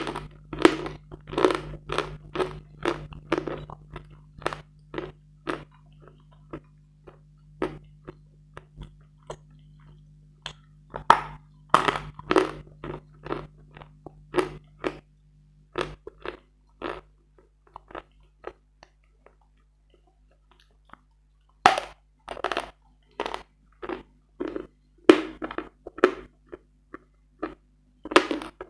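Hard Bogorodsky chalk being bitten and chewed close to the microphone: sharp, dry-sounding crunches, two or three a second, stopping for a few seconds past the middle and then starting again.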